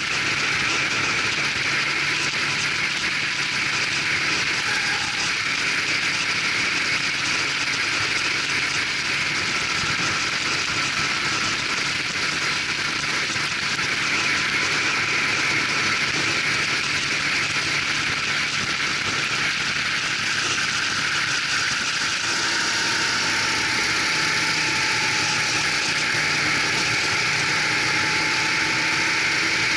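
Go-kart engine running hard at racing speed, heard from a camera mounted on the kart, under a steady rushing noise; its note shifts a little past two-thirds of the way in.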